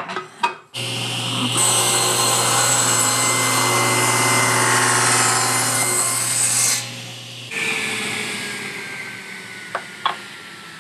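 Table saw motor switched on about a second in, then the blade cutting through a small wood block for about five seconds, a loud hiss over the motor hum. The saw is switched off and the blade winds down with a slowly falling whine, with two light knocks near the end.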